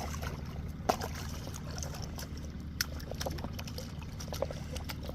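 Water trickling and splashing as a hooked stingray is landed, with scattered sharp knocks and clicks. A steady low hum runs underneath.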